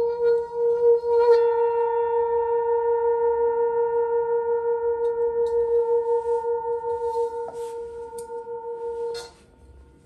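Hand-hammered singing bowl ringing with a steady, wavering tone and several higher overtones; about a second in, a tap adds higher ringing tones. The ring fades and is cut off suddenly near the end by a knock.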